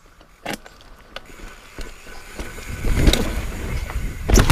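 Mountain bike rolling down over rock: a few sharp knocks, then a louder low rumble of tyres on rock with heavy thumps about three seconds in and near the end.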